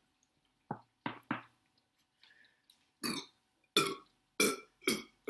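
A woman burping repeatedly from gas after drinking a large amount of cola: a few short, softer burps, then four louder ones about half a second apart in the second half.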